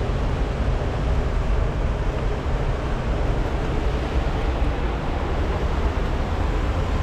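Fast mountain river rushing over rocky rapids: a steady, unbroken rush of water, heaviest in the low range.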